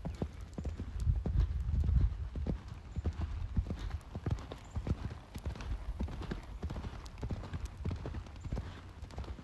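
Hoofbeats of a ridden horse cantering on soft sand footing: a running rhythm of dull thuds, with a heavier low rumble in the first couple of seconds.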